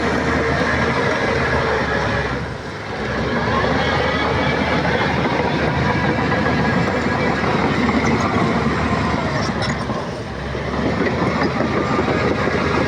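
Shantui crawler bulldozer working, its diesel engine and steel tracks running loud and steady, briefly easing off twice.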